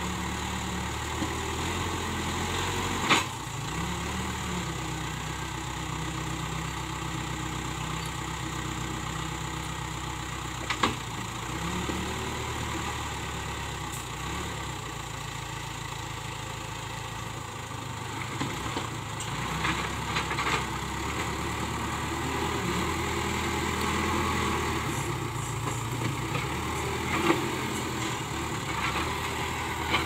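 Case 580K backhoe loader's diesel engine running steadily while the machine works earth with its front bucket. A few sharp knocks stand out, about three seconds in, near eleven seconds and near the end.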